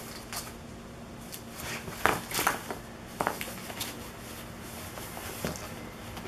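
Ferrets scrambling inside a fabric cat play-tent toy: scattered rustles and light knocks of the cloth as they move under it, loudest about two seconds in.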